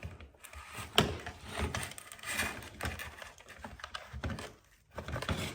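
Plastic parts of a Dyson V6 cleaner head and brush bar being handled: irregular clicks, knocks and scraping, with a sharp knock about a second in.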